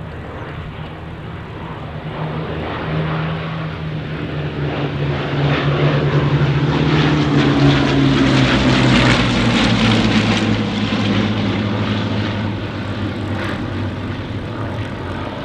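Vintage piston-engined propeller aircraft flying past: the engine note builds, is loudest about eight to ten seconds in, and falls in pitch as it passes and fades away.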